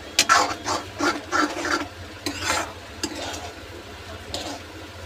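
Spatula stirring and scraping instant noodles against a metal kadai as the masala powder is mixed in. A quick run of scrapes comes in the first couple of seconds, then a few fainter ones.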